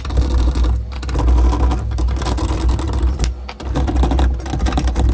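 Torx T25 screwdriver turning screws out of a sheet-metal server chassis: a continuous grinding, scraping turning of metal on metal, broken by a few short pauses.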